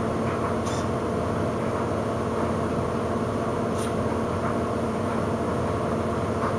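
Steady machine hum, with a faint click about a second in and another near four seconds in.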